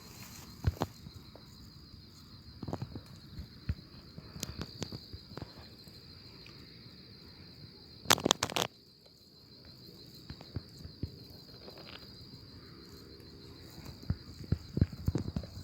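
Night insects trilling steadily in one unbroken high tone, with scattered short clicks and knocks over it and a louder burst of knocking about eight seconds in.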